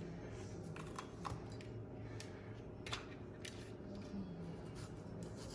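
Faint kitchen knife work on bell peppers: a scattering of soft clicks and scrapes as the peppers are cut in half and their seeds scraped out, over a low steady hum.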